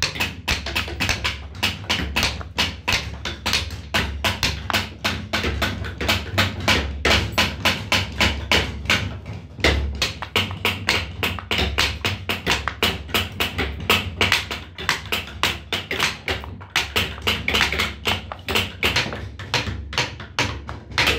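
Wooden mallet rapidly tapping a metal carving punch into a hardwood board, stamping a scalloped border pattern, about four strikes a second with a couple of brief pauses.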